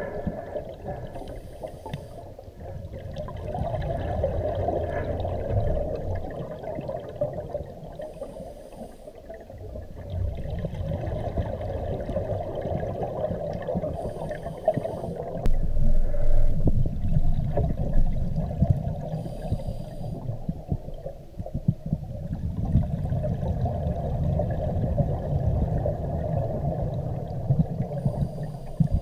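Scuba regulator breathing heard underwater. Long bubbly rumbles of exhaled air alternate with short hissing inhalations through the regulator, about once every six seconds.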